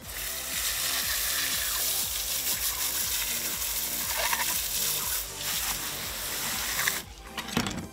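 Garden hose spray nozzle blasting water onto a fish held in the hand, a steady hiss of spray rinsing the cleaned fish, cutting off about a second before the end.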